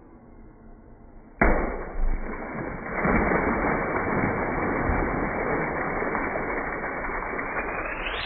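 A water balloon on a hose nozzle bursts with a sudden pop about a second and a half in, followed by a steady rush of water splashing over a plastic bin. It is played back slowed down, so it sounds low and muffled.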